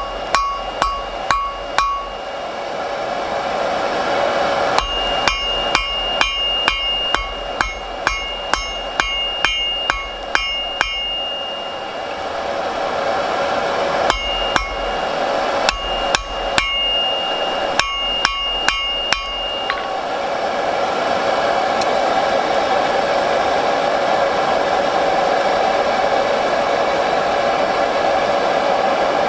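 Hand hammer forging a thick bar of old file steel on an anvil, struck about twice a second in three runs with short pauses between, each blow followed by a ringing anvil tone. The hammering stops about two-thirds of the way through, leaving a steady rushing noise, the forge running.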